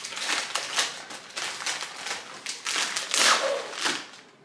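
Plastic Oreo package wrapper crinkling in quick irregular rustles as it is handled and the cookie tray is pulled out. The crinkling is loudest about three seconds in and dies away near the end.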